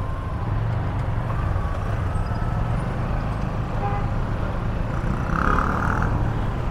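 Motorcycle riding through dense town traffic: a steady low engine and road rumble with other vehicles around. A short, louder, higher-pitched blare comes about five and a half seconds in.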